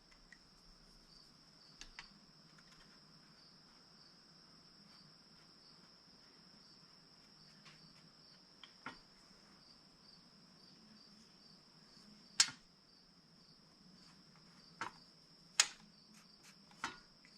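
Crickets chirping in a faint, steady high trill, with a few scattered sharp clicks and knocks; the loudest clicks come about twelve and fifteen seconds in.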